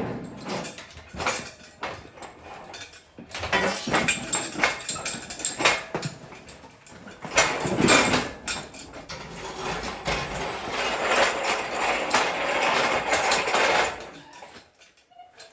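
Irregular metallic knocks and clanks with stretches of scraping and shuffling noise from hands-on work on an old pickup truck, falling nearly silent near the end.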